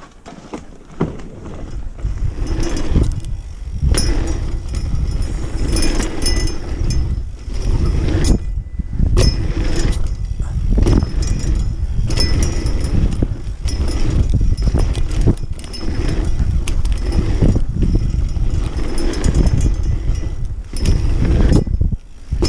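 BMX bike ridden fast around a dirt pump track, heard from a chest-mounted camera: wind rushing over the microphone and tyres rumbling on packed dirt, with irregular knocks and rattles from the bike over the rollers. The noise builds about two seconds in as the riding gets going.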